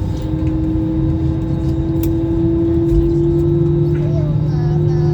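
Airbus A320-200 cabin noise: the steady drone of the jet engines and airflow, with a hum that slowly rises in pitch as the level climbs a little.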